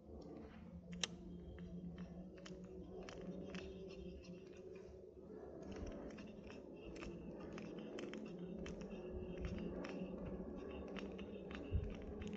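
Spinning reel being cranked to retrieve a cast lure: a steady run of light clicks, about two or three a second, over the low hum of the turning reel.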